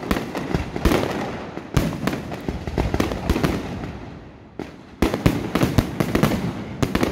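Aerial fireworks shells bursting in a run of sharp bangs, easing off to a lull around four seconds in, then a dense volley of bangs from about five seconds in.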